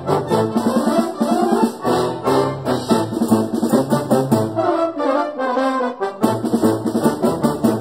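Brass band playing a fast, busy passage of stacked brass chords with percussion strikes. Near the middle the tubas and low brass drop out for about a second and a half, leaving the upper parts, then the full band comes back in with a loud attack.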